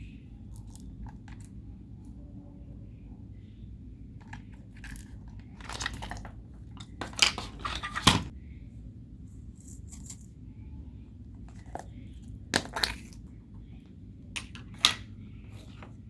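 Homemade slime being handled and pressed: irregular short sticky pops and clicks, loudest in a cluster about halfway through and again near the end, over a low steady hum.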